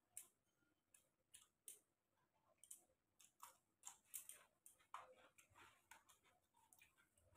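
Near silence, with faint irregular soft clicks and smacks of someone eating rice by hand from a steel plate: fingers mixing food against the metal and chewing, about two small clicks a second.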